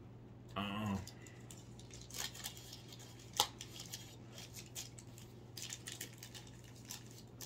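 Faint small clicks and rustles of snacks and a cup being handled, with one sharper click about three seconds in and a cluster of clicks near the end. A brief vocal sound comes near the start, and a low steady hum runs underneath.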